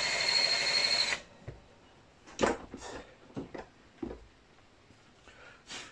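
A power drill running steadily with a faint whine, cut off abruptly about a second in. After it come a few sharp knocks and clicks of metal parts and tools being handled.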